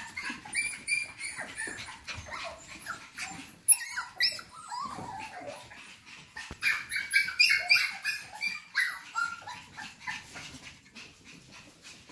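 Cockapoo puppies playing, giving many short high-pitched yips, whines and squeals, with claws clicking on a hardwood floor. One sharp knock stands out a little under four seconds in.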